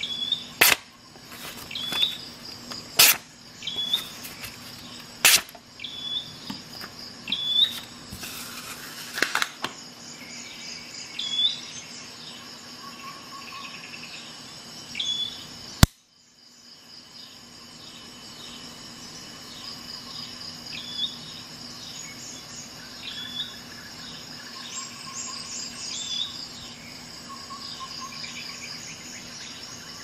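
Steady chirping of crickets with a short bird-like chirp repeating every second or two. A few sharp clicks stand out in the first five seconds, and the sound drops out for a moment about halfway.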